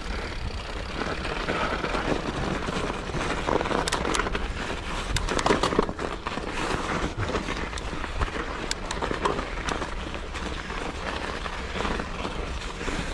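Mountain bike riding singletrack on a thin cover of snow and mud: steady rolling tyre noise with many small clicks and rattles throughout.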